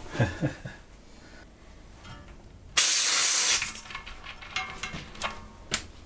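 Compressed air hissing out of a tubeless tire's open valve stem, its valve core removed, in one short loud hiss about three seconds in. A few light clicks from handling the wheel and valve come before and after.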